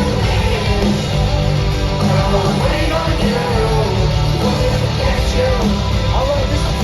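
Live rock band playing loudly through a concert PA, heard from the crowd, with distorted guitars, drums and a wavering melody line that may be voice or guitar.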